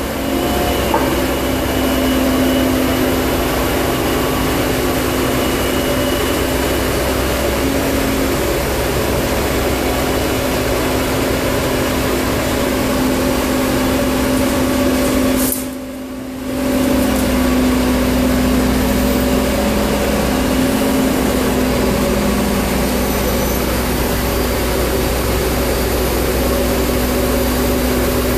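A crane's engine running steadily under load while it hoists a generator, its steady hum wavering slightly in pitch now and then. The sound briefly drops for about a second roughly halfway through.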